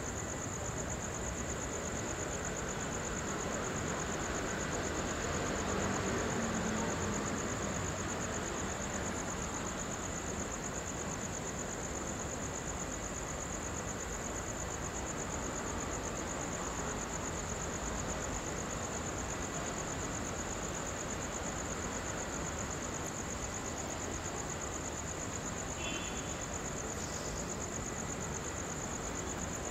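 Crickets trilling steadily in one high, even band over a low background hum. The hum swells and fades around five seconds in.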